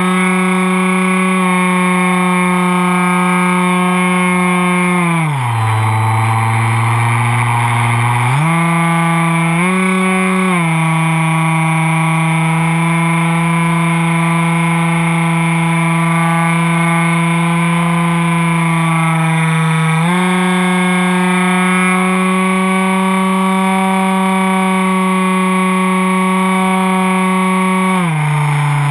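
Electric motor and propeller of a foam RC plane heard from its onboard camera, running steadily. The pitch drops for about three seconds about five seconds in as the throttle is eased, comes back up, and drops again near the end.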